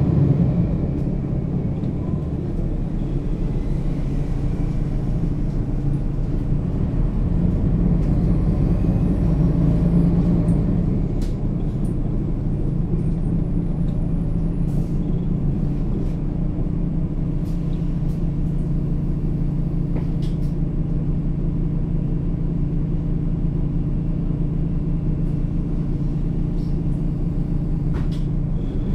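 Mercedes-Benz O 530 G Citaro articulated bus's diesel engine running steadily, with a slight swell about ten seconds in and a few faint clicks.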